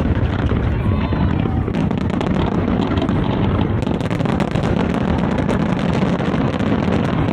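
Big aerial fireworks display: a continuous deep rumble of shell bursts overlaid with dense crackling.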